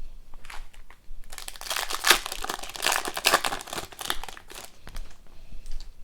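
Foil trading-card pack wrapper crinkling as it is torn open and handled, a dense crackle lasting about three seconds in the middle, with a few short crinkles before and after.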